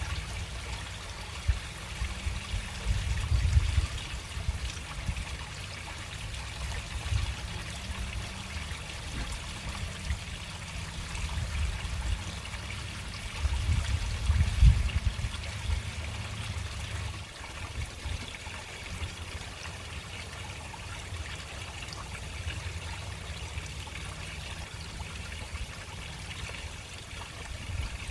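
Water running slowly into a storm drain, a steady trickling splash. A deeper low rumble swells up about three seconds in and again about fourteen seconds in.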